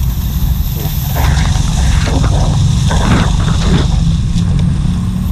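Wind buffeting the microphone: a heavy, uneven low rumble, with a few faint brief rustles over it.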